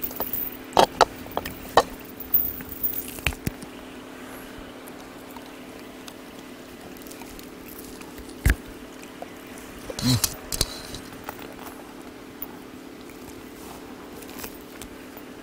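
Jindo dogs eating boiled pork from the hand, with wet chewing and smacking clicks. There is a quick cluster in the first few seconds, a single click about eight seconds in and a short burst around ten seconds, over a steady low hum.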